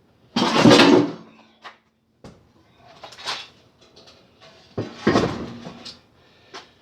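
Cast-iron cylinder head of a 1969 Ford 428 Super Cobra Jet V8 being worked loose and lifted off the block: a loud metal clunk and scrape about half a second in and another about five seconds in, with lighter knocks and clicks between.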